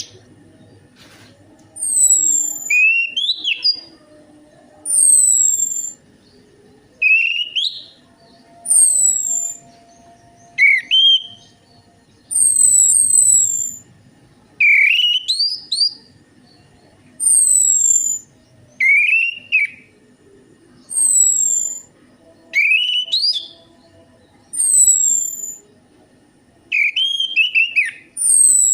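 Orange-headed thrush song played as a lure recording to set captive birds singing: short whistled phrases about every two seconds, each a rising whistle topped by high, falling notes.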